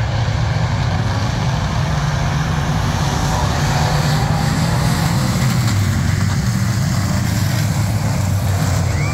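A pack of pure stock dirt-track race cars with their engines running hard as the field takes the green flag at the start of the race: a loud, steady, low engine drone.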